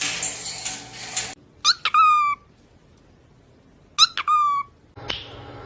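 A parrot gives two identical short calls about two seconds apart, each a quick upward sweep into a held, slightly falling high note. Before them there is a stretch of noisy room sound.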